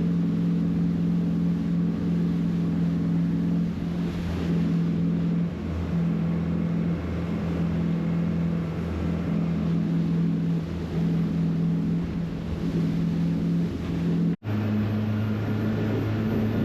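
Motorboat engine running steadily with the boat under way at speed, a strong even hum. About fourteen seconds in the sound cuts out for an instant, and then the engine note is lower.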